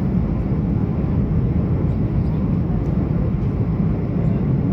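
Steady low rumble of jet engines and rushing air, heard from inside a jet airliner's passenger cabin in flight.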